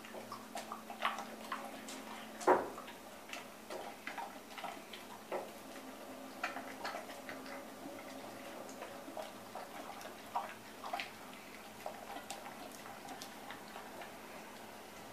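Dog eating from a stainless steel bowl: irregular clicks and clinks of its mouth and teeth against the metal bowl as it chews, with one louder knock about two and a half seconds in.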